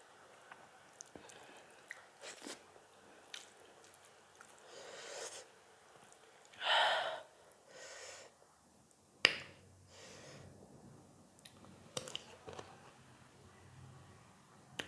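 Close-miked chewing and mouth sounds of someone eating a meal, with scattered soft clicks and smacks. A loud breath comes about seven seconds in, and a sharp click a little after nine seconds is the loudest moment.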